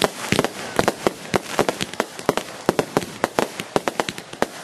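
Aerial fireworks going off: a rapid, irregular run of sharp cracks and pops, several a second, over a steady hiss.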